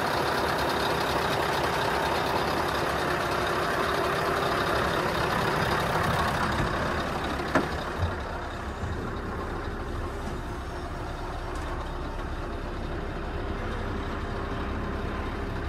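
Scania R500 truck's V8 diesel engine idling steadily, heard first beside the chassis and then more muffled from inside the cab, with a sharp knock about seven and a half seconds in.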